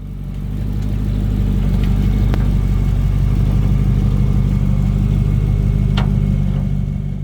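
Off-road 4x4's engine running steadily, with two sharp clicks, one about two seconds in and one near the end, before it fades out.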